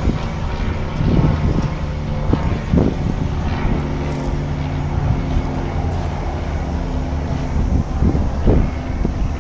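The 2011 Dodge Ram 3500's 6.7-litre Cummins inline-six turbo diesel idling steadily, with the occasional gust of wind on the microphone.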